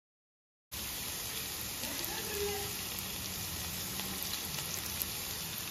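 Chopped onions and garlic frying in gingelly (sesame) oil in a steel pan, a steady sizzle with small crackles. It starts abruptly a moment in.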